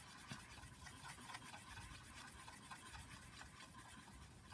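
Faint, rapid scratching of a paintbrush mixing black and white tempera paint on a palette.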